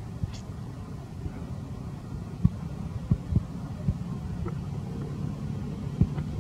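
A low steady rumble with several dull knocks at uneven spacing, the loudest about two and a half seconds in and near the end.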